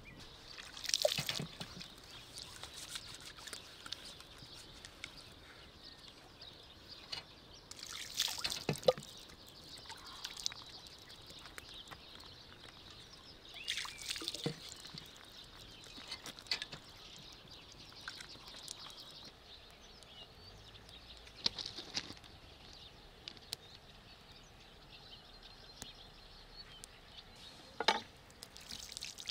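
Water poured from a clay jug, splashing in about five short bursts several seconds apart as hands and a knife are rinsed, over a faint steady hiss.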